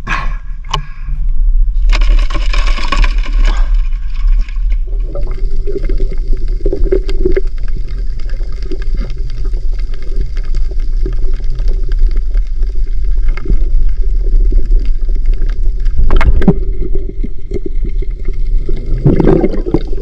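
Shallow seawater sloshing and splashing as blue swimming crabs are caught by hand while wading, with a loud burst of splashing about two seconds in. A steady low rumble runs underneath, and a faint steady hum comes in about five seconds in.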